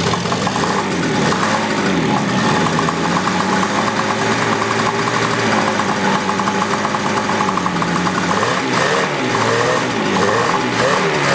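Suzuki GT185's air-cooled two-stroke twin engine running, back to life after more than twenty years abandoned. It holds a steady idle, then its pitch rises and falls several times in the last few seconds as the throttle is blipped.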